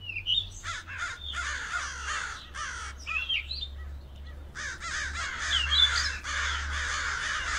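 Birds calling in overlapping runs of harsh, caw-like calls, with a few short rising chirps, over a low steady hum. The calls break off sharply more than once and cut off suddenly at the end.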